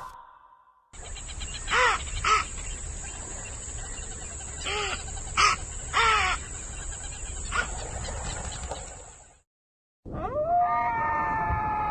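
A bird gives about six short, harsh calls spread over several seconds, over a steady high hiss. After a brief silence, a longer, drawn-out animal call starts near the end.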